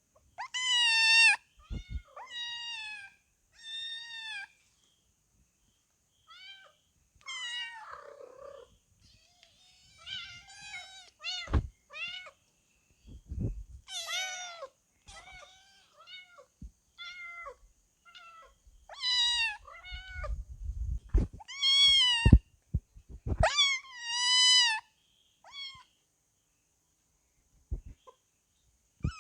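Kitten mewing again and again: some twenty short, high-pitched meows with irregular gaps, a few louder than the rest. A few soft knocks fall between the calls.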